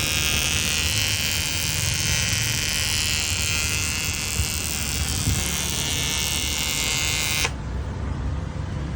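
Steady buzzing hiss of an AC TIG welding arc on aluminium, from a 200 A AC/DC TIG welder. It cuts off suddenly about seven and a half seconds in as the arc is broken.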